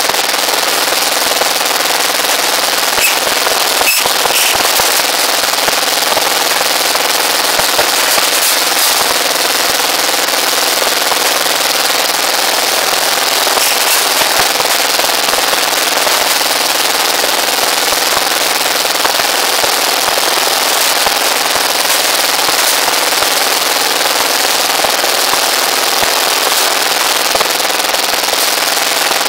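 Small stationary engine running steadily as it drives a rebar bending machine bending steel reinforcing bars, a dense rattling mechanical noise at constant loudness. A sharp knock stands out about four seconds in.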